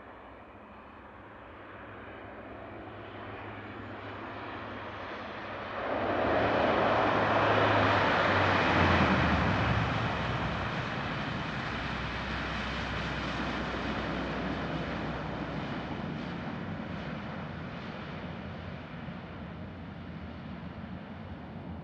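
Dash 8 Q400 turboprop airliner landing and rolling out, its twin turboprop engines and propellers running. The sound builds gradually, gets abruptly louder about six seconds in, drops in pitch as the aircraft passes around nine seconds in, then slowly fades as it rolls away down the runway.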